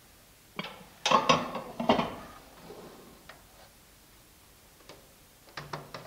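A glass bowl being set down inside a microwave oven: several clinks and knocks of glass on the oven floor in the first two seconds, then a few faint clicks.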